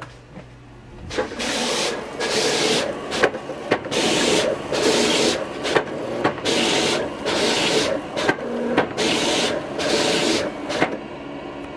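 Vinyl cutter cutting out fog-light shapes in 3M protection film: its head and feed motors run in a quick series of short start-stop whirring strokes as the blade traces the outlines. The strokes start about a second in and stop near the end.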